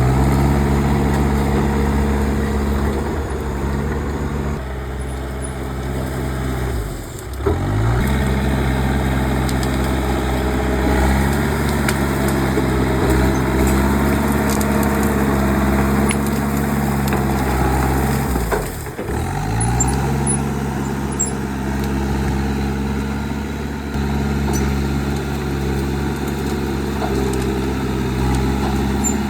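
Komatsu bulldozer's diesel engine running steadily at high revs. Its pitch drops sharply and climbs back twice, about a quarter of the way in and again about two-thirds through.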